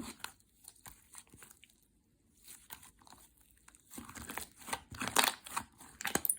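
Slime being squeezed and pressed by hand, giving irregular crackling, popping clicks; they thin out about two seconds in, then come thick and louder from about four seconds in.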